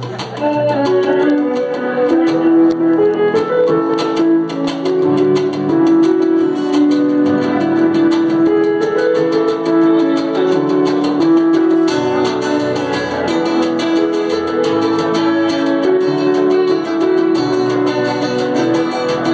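Live band playing an instrumental passage without vocals: a guitar-led melody of held notes over a bass line, loud and steady.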